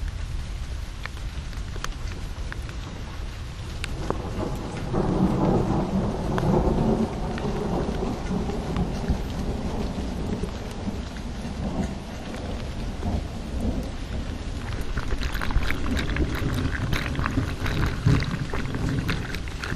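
Heavy rain falling steadily over a low rumble, with a deeper rumble swelling and fading about four to eight seconds in. Near the end, dense sharp drips and splashes of water pouring close by from an outlet.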